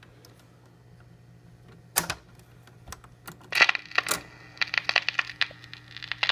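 Record changer of a 1950 Ristaucrat Model 2020 45 rpm player cycling between records: mechanical clicks and clatter, with one loud click about two seconds in and denser clicking in the second half. A steady low hum from the set runs underneath.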